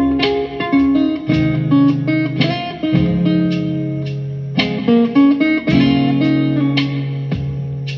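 Guitar music: plucked single notes and chords ringing over sustained bass notes, with fuller chords struck about three seconds in and again near five seconds, in a slow, bluesy style.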